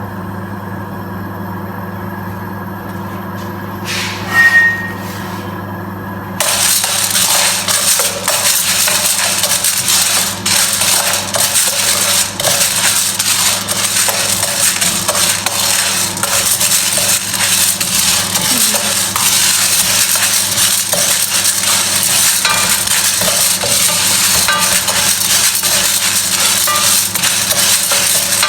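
Green coffee beans rattling and scraping in a metal pan as they are stirred during roasting: a dense run of small clinks that starts suddenly about six seconds in. Before it, a steady low hum with one short loud tone a little after four seconds.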